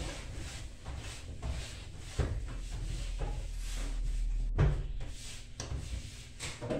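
Cloth rubbing over the inside of an open kitchen drawer, with a few knocks against the drawer; the loudest knock comes a little past halfway.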